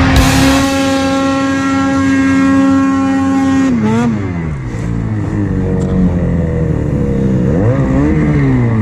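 Ski-Doo 850 two-stroke snowmobile engine held at steady high revs through deep powder. About four seconds in, the revs drop sharply and it runs lower and unevenly, with one throttle blip rising and falling near the end.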